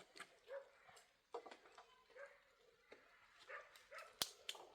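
Faint, short whining calls from an animal, repeated several times, with a few sharp clicks near the end.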